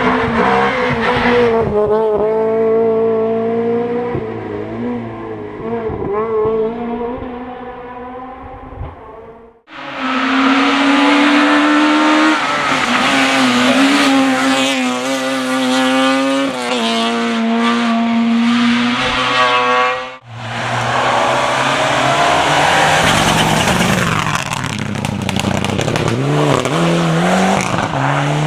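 Rally cars at speed: engines revving hard and changing pitch up and down through gear changes and lifts, with tyre noise. Three separate passes follow one another, each breaking off suddenly, about ten and twenty seconds in.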